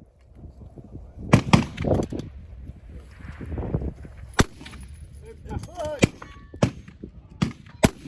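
Rifle shots on a shooting range: a string of sharp cracks at uneven spacing, five of them in the second half. Two louder, duller knocks come about a second in.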